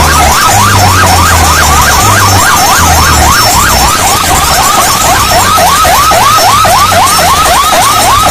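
Huge DJ speaker stacks blaring an electronic siren effect, a rising sweep repeated about four times a second, over a deep bass line that steps between notes. The whole thing is very loud.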